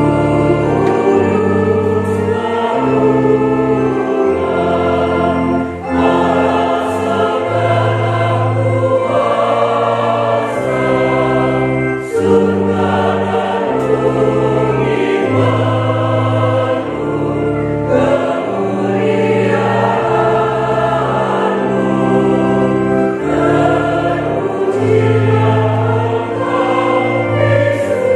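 Mixed church choir singing a hymn in harmony, the chords changing every second or two.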